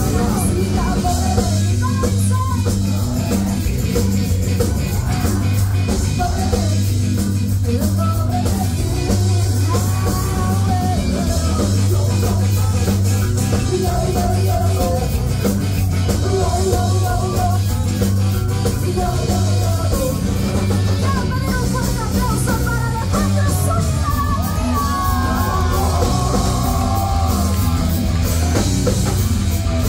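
Rock band with a horn section playing live: drums, electric guitars, trombone and saxophone under sung and shouted vocals, loud and unbroken.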